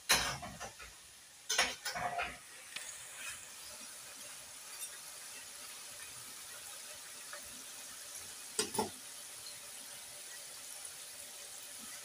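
Potato chips (fries) deep-frying in hot oil in a stainless steel pan, a steady sizzle. A metal slotted spoon knocks and scrapes against the pan at the start, again about two seconds in, and once more near nine seconds; the first strokes are the loudest.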